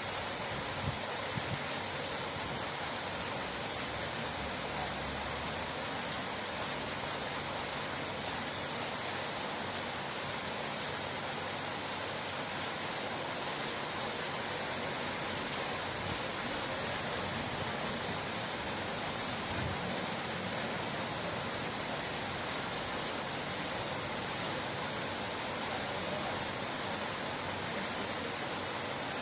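Steady, unbroken rushing of flowing water, an even hiss with no changes.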